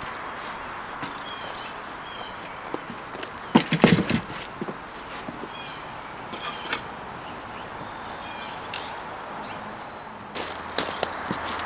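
Outdoor background of steady hiss with birds chirping in short repeated calls, and a cluster of knocks and thumps about four seconds in.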